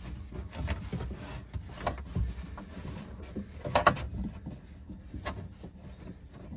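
Hands fitting a heavy battery ground cable onto a battery monitor's shunt terminal: scattered rubbing and small knocks, with the sharpest clicks about two seconds and four seconds in.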